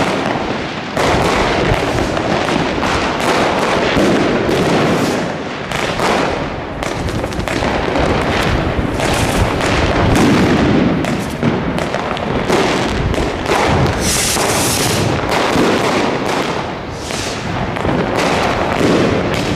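Dense New Year's fireworks: many bangs and crackles going off in quick, overlapping succession without a break. A short high hiss comes through about fourteen seconds in.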